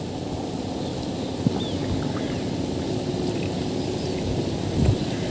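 Wind rumbling on the microphone over a faint steady drone, with a light tap about a second and a half in and a dull bump near the end.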